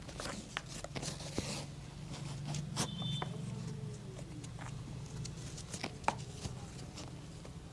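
Scattered light taps and clicks with brief scraping, the handling of a shoe and tools during street shoe-shine work, over a steady low hum.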